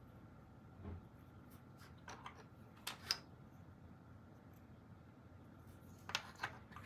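Small black plastic FischerTechnik gears being handled and set down on a wooden desk: a few faint, short plastic clicks and taps over quiet room tone, the sharpest about three seconds in and a small cluster near the end.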